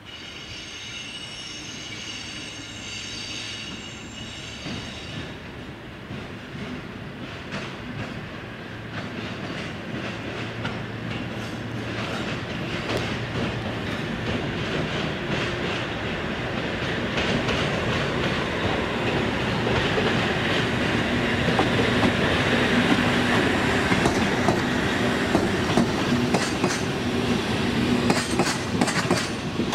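Japanese Class ED75 electric locomotive approaching and passing slowly with a works train of rail-carrying flat wagons. A high steady tone sounds for the first five seconds or so, then the locomotive's hum and the wheel noise build steadily louder. Near the end, the wheels click over rail joints as the wagons roll past.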